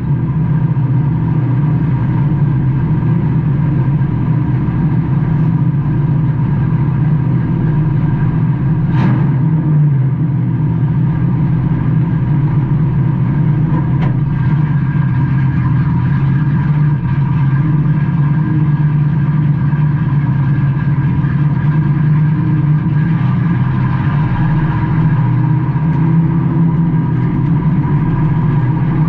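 Stock race car engine heard from inside the car, running at a steady speed with little change in pitch, with a couple of brief knocks.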